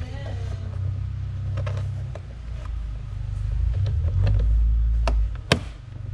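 Plastic trim cover being pressed and fitted into place over the rear suspension top, with scattered light clicks and one sharp plastic snap about five and a half seconds in, over a steady low rumble.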